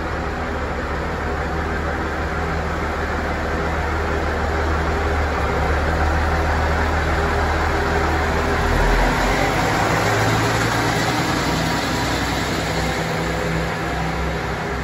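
KiHa 48 diesel railcar engines running as the train moves slowly along the platform. The low, steady throb changes about halfway through and grows louder, with more rumble and rail noise as the cars pass close by.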